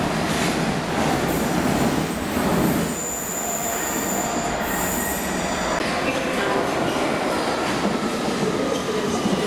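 A train running over the rails, a steady rumble with thin high wheel squeals over it, the highest and strongest squeal in the middle.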